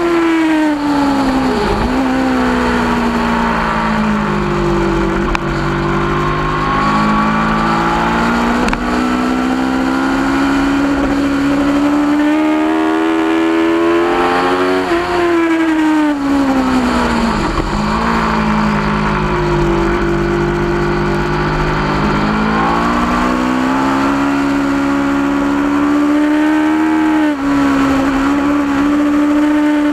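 2010 Aprilia RSV4's 65-degree V4 engine at track pace, heard onboard: the engine note climbs in steps through quick upshifts, then falls steeply under braking and downshifts, twice, before climbing again. Wind noise runs underneath.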